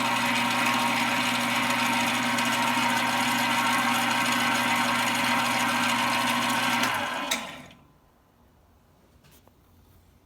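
8x12 mini lathe running with a steady hum, then switched off about seven seconds in with a click and spinning down quickly to quiet.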